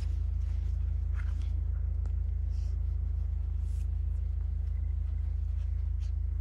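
A steady low rumble with an even level, and a few faint, short, soft sounds above it.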